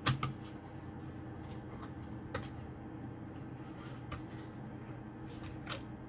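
2.5-inch laptop hard drive being worked out of its bay by hand: three sharp plastic-and-metal clicks, one at the start, one about halfway and one near the end, with a few fainter taps in between, over a steady low hum.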